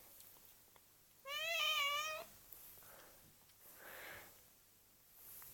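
Domestic cat meowing once, a single meow about a second in lasting nearly a second, followed by a few faint soft sounds.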